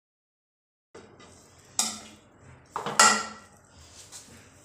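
Metal serving spoon clinking against a plate as rice pulao is served: two sharp clinks about a second apart, each ringing briefly.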